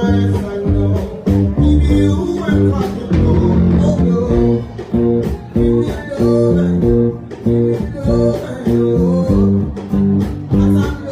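Live band music: plucked guitar lines over bass guitar and a steady beat, played through the PA.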